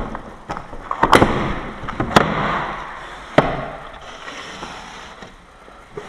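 Window lock being handled and fitted back into a metal window frame: several sharp clacks, the loudest a little after one second, at about two seconds and at about three and a half seconds, with scraping and rustling between them, quieter near the end.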